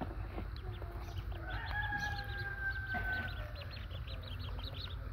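Ducklings peeping with many short, high chirps throughout, joined about a second in by one long, steady bird call lasting about two seconds.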